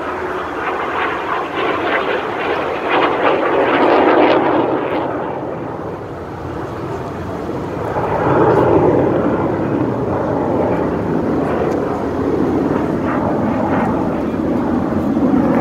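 Military jet roaring through a low-level display pass and steep climb. The engine roar swells to a peak about four seconds in, eases, then swells again around eight seconds in and stays loud.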